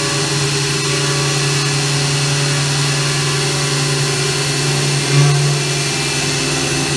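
Reichenbacher Artis X6 CNC machining center running: a steady mechanical hum with a hiss over it, briefly louder about five seconds in.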